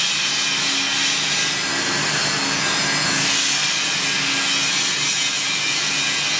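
RC-02W shoe repair finisher machine running with no shoe on it: electric motors spinning the trimmer cutters, sanding belts and polishing brushes, with the built-in dust extraction. A steady rushing hiss over a low hum.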